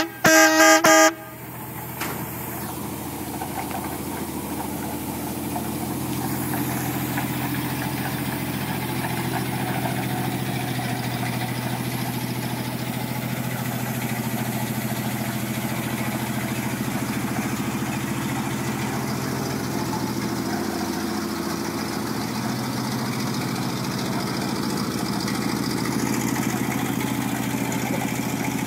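A loud horn blast on a 1964 American LaFrance fire engine for about the first second. It gives way to the truck's 600-cubic-inch Continental six-cylinder gasoline engine idling steadily.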